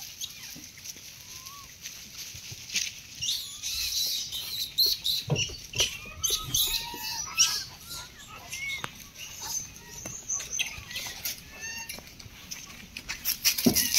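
Dry fallen leaves crackling and rustling over and over, with many short chirping calls that rise and fall in pitch.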